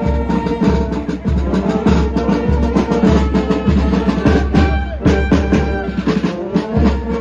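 Military brass band playing a march: tubas, trumpets and other brass over a steady bass-drum beat of a little under two strokes a second.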